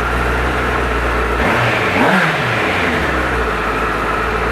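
Honda CBR1000RR inline-four on its stock exhaust running from a cold start. It idles steadily, with a short throttle blip about a second and a half in where the pitch rises and falls back to idle.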